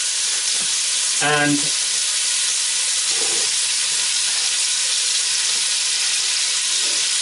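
Cubed pork shoulder sizzling in hot olive oil in a stainless steel pan on high heat, an even, steady hiss: the meat is being seared to seal it.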